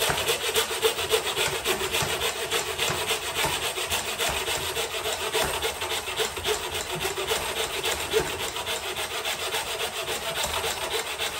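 Hand mitre saw cutting through wooden dado rail moulding on a diagonal, in steady, quick back-and-forth strokes.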